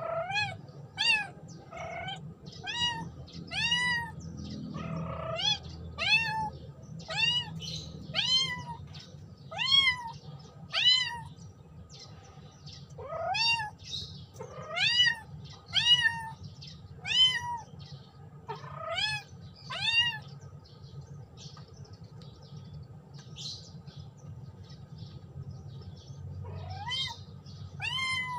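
Kitten meowing over and over, calling for its companion: short high-pitched meows about one a second. The meows fall away to a few faint ones for several seconds late on, then start again near the end.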